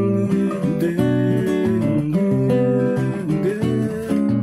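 Nylon-string classical guitar played solo, plucked chords and notes moving steadily with no singing.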